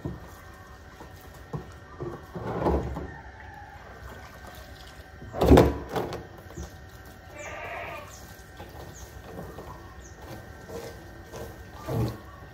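Goats bleating several times, the loudest call about halfway through.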